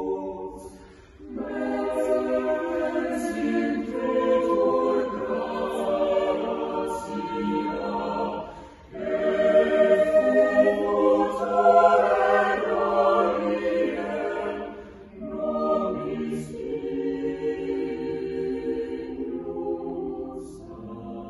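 Choir singing unaccompanied, in sustained chordal phrases with short breaks about a second in, near nine seconds and near fifteen seconds. The phrase after the second break is the loudest.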